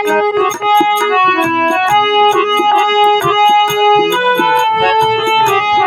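Music: an instrumental break in a Hindi song, an electronic keyboard playing a quick melody of short notes over a steady beat.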